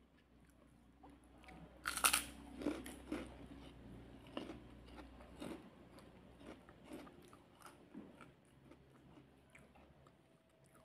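A loud crunchy bite about two seconds in, then repeated crunching and chewing of food close to the microphone, growing fainter toward the end.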